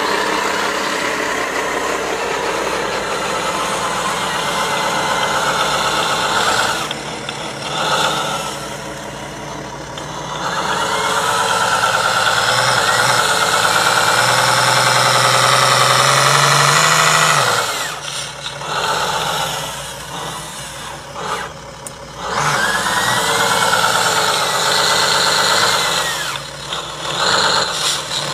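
Radio-controlled scale semi-truck driving under a heavy lumber load, its motor running in surges, the pitch rising and falling as it pulls. It is loudest about halfway through and again near the end, easing off in between.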